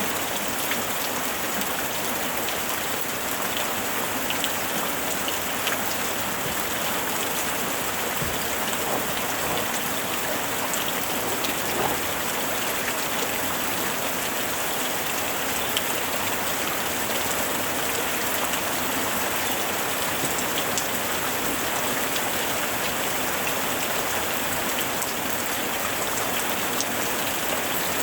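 Steady rain falling, with the scattered patter of individual drops hitting a surface.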